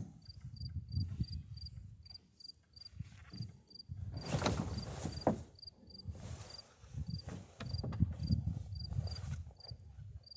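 A cricket chirping steadily, short evenly spaced chirps at one high pitch, roughly two and a half a second. Under it, wind rumbles on the microphone, with a few rustles and knocks about halfway through and again near the end.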